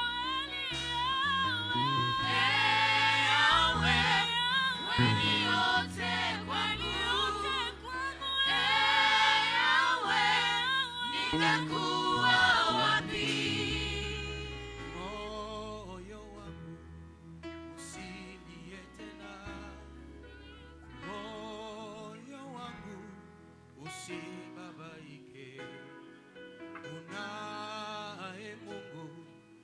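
Gospel worship song with singers over instrumental backing, sung in Swahili. The singing is full and loud for about the first half, then eases into a softer, quieter passage.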